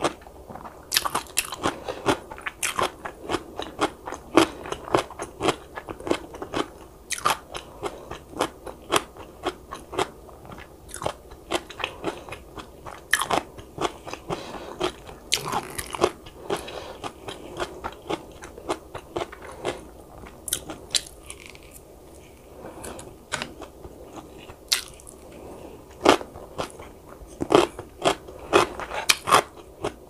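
Close-miked eating sounds: a person biting and chewing food, a rapid run of sharp, moist clicks that thins out for a few seconds past the middle before picking up again.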